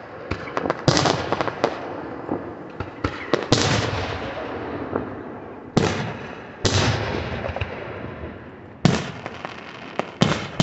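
Aerial firework shells bursting overhead: about six loud booms a second or two apart, each fading off, with crackling and popping from the breaking stars in between.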